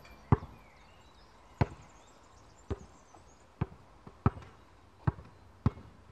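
A basketball bouncing on a hard outdoor court: about seven sharp bounces, each with a short hollow ring, about a second apart at first and coming a little quicker near the end as it is dribbled.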